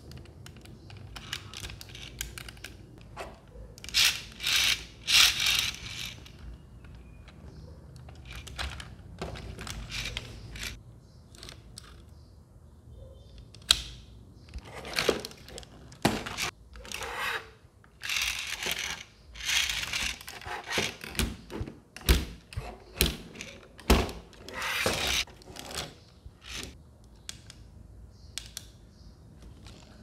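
Hands handling a plastic remote-control velociraptor toy: irregular clicks, knocks and rubbing of plastic parts as its tail, legs and head are moved.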